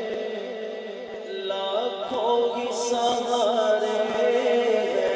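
A man singing a devotional Urdu naat into a microphone, the voice amplified and drawn out in long, wavering, ornamented melodic phrases.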